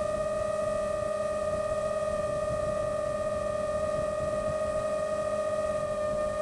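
Micro FPV quadcopter's electric motors and propellers whining at a steady pitch in cruising flight, over a rough rush of air.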